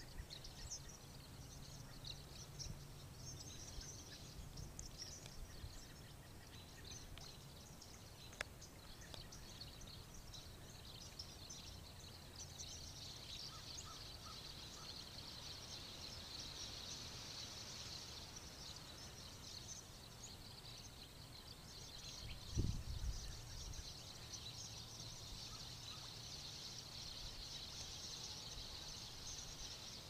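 Massed high-pitched calling of a large flock of small birds, many overlapping chirps forming a continuous chatter that thickens about halfway through. A brief low bump, like wind or handling on the microphone, about three-quarters of the way in.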